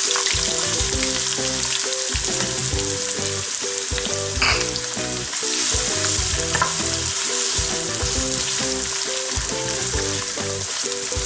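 Freshly added sliced raw onions sizzling in hot oil in a wok, stirred with a wooden spatula that knocks the pan once about four and a half seconds in. Soft background music plays underneath.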